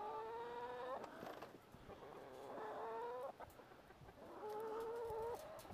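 A chicken calling three times: long, level-pitched squawks about a second each, evenly spaced, each cutting off abruptly.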